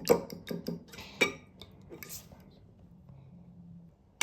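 Fork clinking against a bowl while beating eggs: a handful of sharp, uneven strikes that stop about two seconds in.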